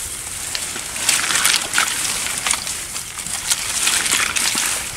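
Water sloshing and splashing in irregular bursts, with a high hissing wash between them.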